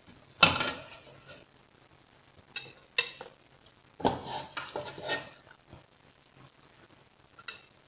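Slotted metal serving spoon clanking and scraping against a stainless steel pot and a ceramic plate as food is scooped out and served. The loudest clank comes about half a second in, two more near three seconds, then a run of clinks and scrapes around four to five seconds.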